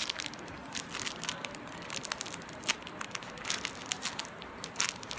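A soft foam squishy toy being squeezed and handled, giving an irregular run of small crinkling, crackling clicks.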